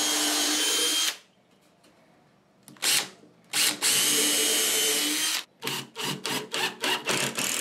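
Makita 18V cordless drill boring pilot holes into a pine board, with a steady motor whine. It runs for about a second, stops, gives a brief burst, then runs for about two seconds. Near the end comes a string of short trigger pulses.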